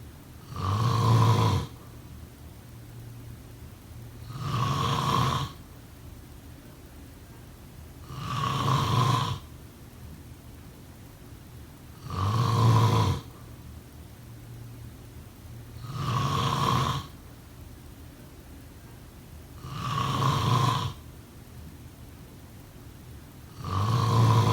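A person snoring steadily, one loud, low snore about every four seconds, each lasting about a second, with quiet breathing hiss in between.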